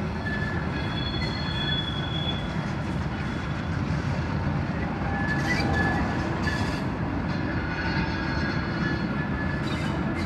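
Heritage train's vintage wooden Länderbahn-era carriages rolling past on the track, a steady rumble of wheels with thin, high wheel squeals now and then.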